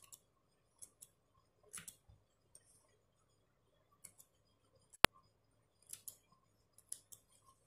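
Small hand blade cutting the excess patch fabric close to the embroidery stitching: faint, scattered snips and scrapes through cloth and thread. A single sharp click about five seconds in is the loudest sound.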